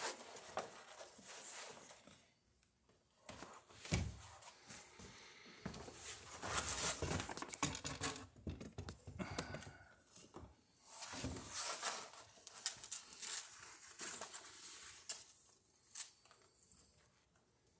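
Seam tape being pulled off its roll in repeated ripping bursts, with the sailcloth crinkling under the sailmaker's hands.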